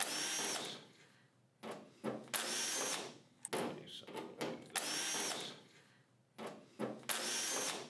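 Cordless drill/driver spinning in four short runs of under a second each, about two seconds apart, backing out the freeze dryer's panel screws, with light clicks between the runs.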